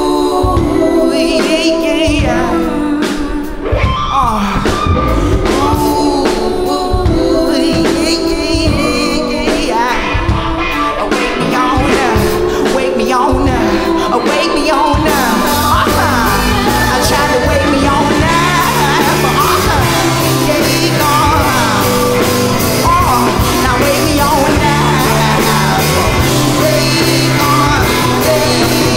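Live band playing a pop-rock song: sung vocals over electric guitar, bass guitar, drum kit and keyboard. About halfway through, the drums settle into a steady beat and the band fills out.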